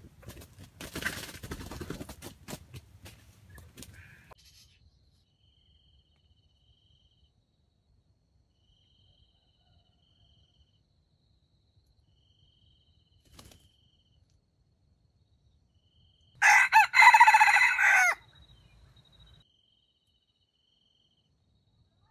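Red junglefowl rooster crowing once, a loud crow of under two seconds about two-thirds of the way in. Before it, rustling in the first few seconds and a faint high chirp repeating every second and a half or so.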